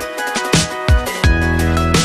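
Electronic background music: a steady beat of kick drum and percussion under held synth notes, with a deep bass line coming in about a second in.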